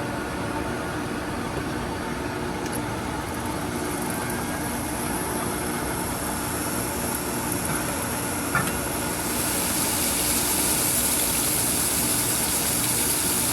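Grinding machine running with a steady hum, a brighter hiss coming in about two thirds of the way through, and a single click shortly before it.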